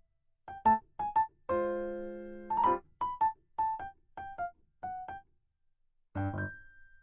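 Background music: short piano-like keyboard notes in a simple melody, about two notes a second, with a chord held for about a second, starting a second and a half in.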